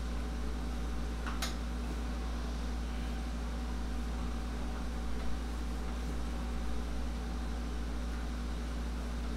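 Steady hum of a room air conditioner running, with one brief click about a second and a half in.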